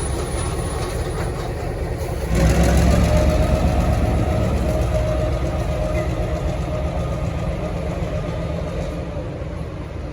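V/Line Y class diesel-electric shunting locomotive Y129 running, its diesel engine growing louder and deeper about two seconds in as it takes power, then settling back to a steady rumble.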